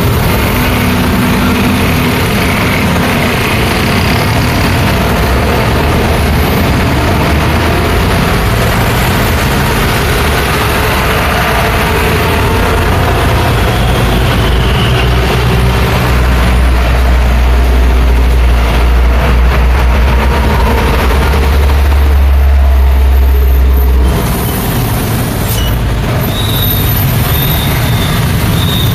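Busy road traffic, a continuous mix of passing engines and tyre noise. A heavy vehicle's deep engine rumble grows to the loudest sound from about halfway and drops away suddenly near the end.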